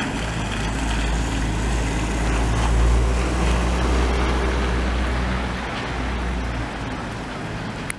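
A city bus pulling away over wet, slushy paving. A low engine rumble swells for about three seconds and then fades, over a steady hiss of wet road noise.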